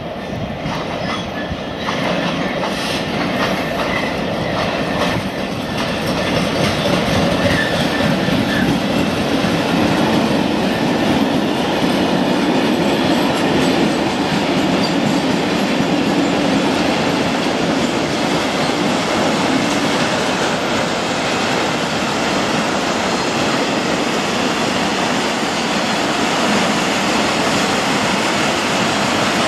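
Class 66 diesel locomotive, with its two-stroke V12 engine, passing at speed, followed by a long freight train of loaded car-carrier wagons. The wagons roll by with a steady rumble and the clickety-clack of wheels over rail joints. The sound grows louder over the first couple of seconds as the train draws level.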